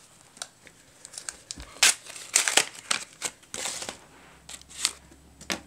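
A Teamcoach trading-card pack's wrapper being crinkled and torn open by hand: a string of sharp crackles, loudest about two to four seconds in.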